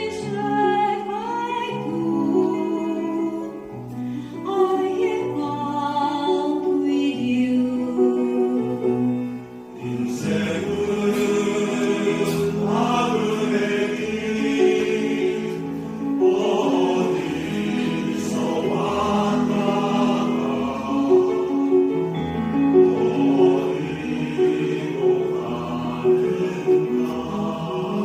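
A mixed choir singing with piano accompaniment. About ten seconds in, the singing becomes fuller and louder as more voices join.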